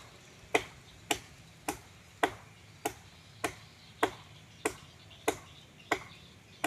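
Steady chopping of a hand-held blade into tree wood during manual pruning: about a dozen sharp strikes at an even pace of nearly two a second, some a little louder than others.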